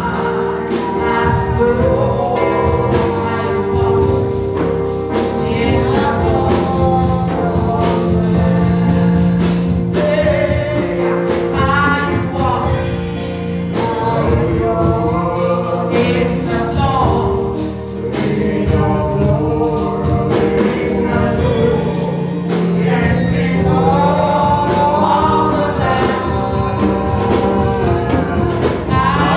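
Gospel music with singing voices over a steady beat and held keyboard-like chords.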